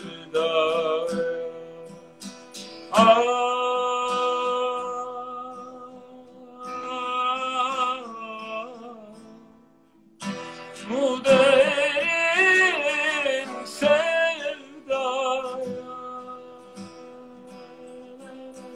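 A male tenor singing a slow Turkish song with long held notes and vibrato, with acoustic guitar accompaniment underneath.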